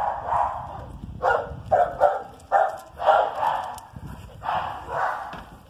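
A dog barking repeatedly, about eight short, loud barks at uneven intervals.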